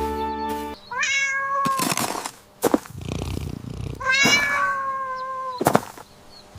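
Cat meowing twice, each call rising then falling in pitch, the second one longer. A sharp click follows each meow.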